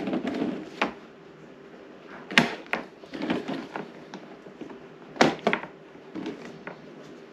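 Hard plastic egg-turner trays of an egg incubator being handled and snapped into their plastic frame, with a series of sharp clicks. The loudest snaps come about two and a half and five seconds in, each followed quickly by a second click.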